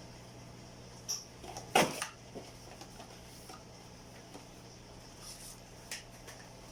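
Tools or engine parts being handled on the bench: one sharp clack about two seconds in and a few lighter clicks, over a steady low hum.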